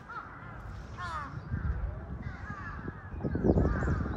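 Crows cawing repeatedly over the background chatter of people, which gets louder near the end.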